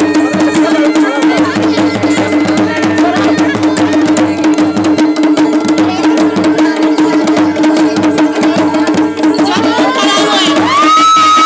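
Folk bagpipe (mashakbeen) holding a steady drone under a melody, with dense hand-and-stick drumming on a dhol. Near the end, shouts rise from the crowd.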